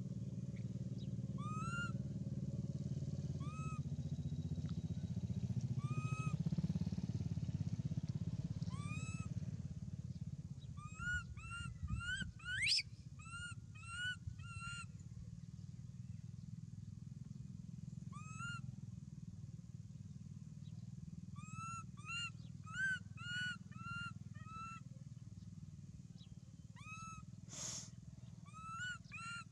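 Short, arched high calls repeated many times, at first singly and then in quick clusters, over a steady low motor drone that is loudest in the first ten seconds and shifts in pitch partway through.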